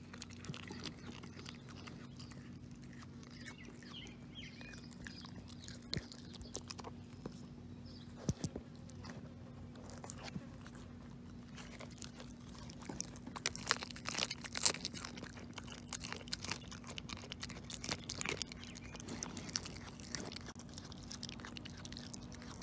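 A 9-pound Maltese chewing a raw, bone-in chicken leg quarter: irregular wet crunches and clicks of teeth on meat and bone, coming thickest about two-thirds of the way through.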